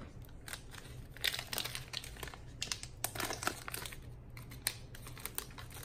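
A trading-card pack wrapper crinkling as it and the cards inside are handled: irregular rustling with small sharp crackles.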